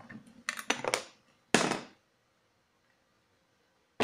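Hard plastic stud-finder housing parts clicking and rattling as they are handled, then one louder, short scrape about a second and a half in.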